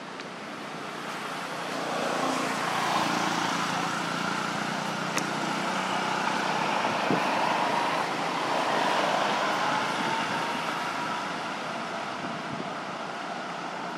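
A road vehicle passing by: a noisy engine-and-tyre hum that swells about two seconds in, holds, and fades slowly over the last few seconds, with a couple of small clicks.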